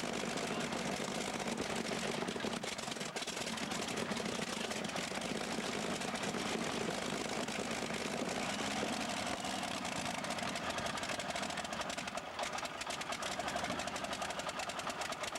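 Big multi-cylinder engine of a modified pulling tractor, with open individual exhaust stacks, idling steadily with a rapid, even beat. Its tone shifts slightly about halfway through.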